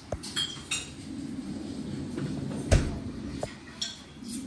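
Plates, bowls and cutlery clinking and clattering a few times over a steady low background din, with a heavier knock about two and a half seconds in.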